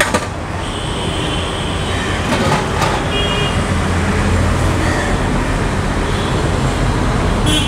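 Steady street traffic rumble from a busy roadside, with a few brief clicks.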